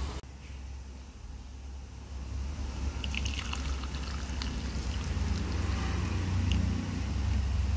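Meat broth being poured from a glass bowl onto noodles, trickling and splashing, with a few light clinks of glass in the middle. A steady low hum runs underneath.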